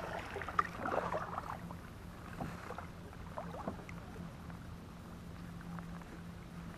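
Kayak being paddled: the paddle dips and drips, with small knocks and clicks against the hull, loudest in the first couple of seconds, over a steady low hum.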